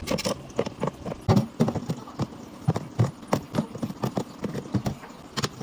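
Containers, bottles and food items being set down and slid into place on fridge shelves and door racks: a quick, irregular run of knocks and clacks, several a second.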